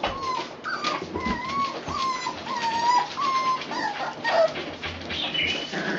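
Puppies whimpering: a string of short, high, wavering whines one after another, with newspaper rustling and crackling under their paws.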